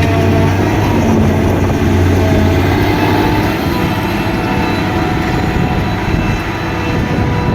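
Self-propelled forage harvester's diesel engine running steadily with a low hum, the engine note easing slightly about halfway through.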